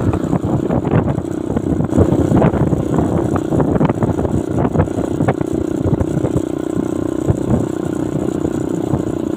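Motorcycle engine running steadily while riding a rough dirt road, with wind rumble and frequent knocks from bumps on the microphone.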